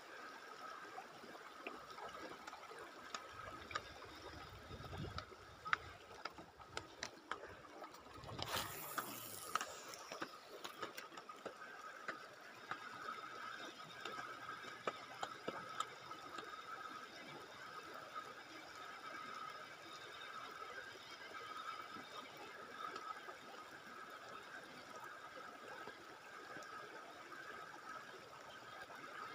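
Faint flowing river water with the small clicking of a spinning reel being wound as a lure is retrieved, and one sudden swish falling in pitch about eight seconds in.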